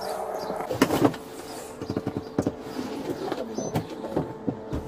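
Scattered knocks, clunks and rustling as a person climbs into the hard molded-plastic rear seat of a police cruiser, over a steady hum.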